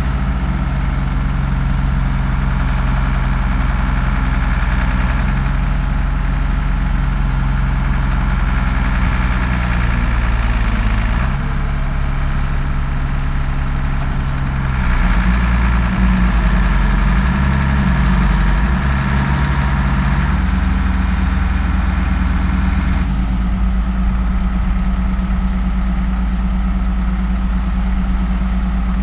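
Heavy diesel engine of farm machinery running steadily through a pull attempt, its note shifting several times.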